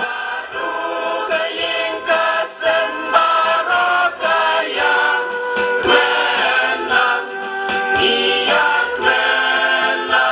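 Music: a choir singing in harmony with instrumental accompaniment.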